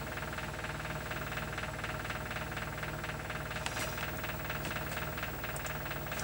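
Machinery running steadily with a fast, even rattling pulse over a low hum and a faint steady tone, with a couple of faint clicks.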